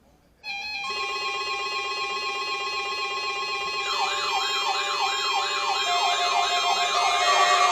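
NOAA Weather Radio warning alarm test sounding. A chord of steady electronic alarm tones starts abruptly about half a second in. About four seconds in, a fast, repeating siren wail of about three sweeps a second joins, and the whole grows gradually louder.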